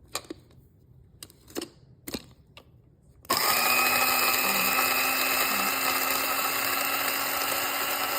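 A few light clicks, then about three seconds in an Amazon Basics electric coffee grinder switches on and runs steadily, grinding coffee beans for drip coffee.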